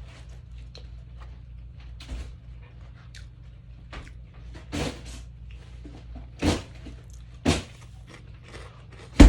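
A few sharp knocks and clatters, a pair about five seconds in, then single louder ones, the loudest near the end, over a steady low hum.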